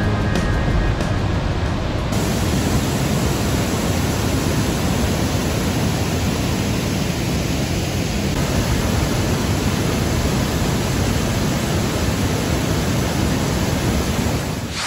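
Steady rush of water pouring over Sandstone Falls, a wide, low waterfall on the New River.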